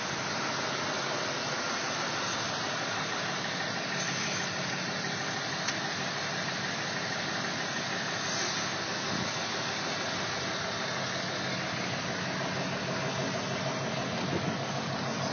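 A motor running steadily at an even idle, with a constant hiss over it.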